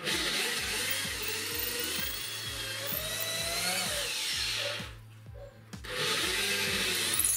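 Corded electric drill boring a long bit lengthwise through the knuckles of a clamped plywood hinge, running for about five seconds, stopping for about a second, then starting again. Background music with a steady beat plays underneath.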